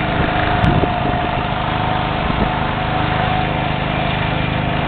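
Heavy diesel engine running steadily at an even idle, with a steady whine above the engine note.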